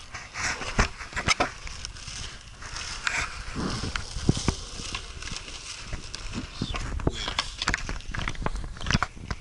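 Skateboard rolling on concrete with a steady low rumble, broken by many sharp clacks and knocks from the board and from the camera bumping and rubbing against clothing.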